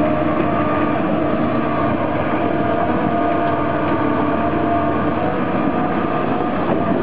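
Hitachi tracked excavator's diesel engine running steadily under load, a continuous drone with a level whine on top, while the tipped machine pushes on its boom and bucket to level itself.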